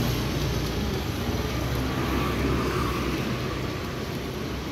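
Steady low rumble and hiss of road traffic, without a break.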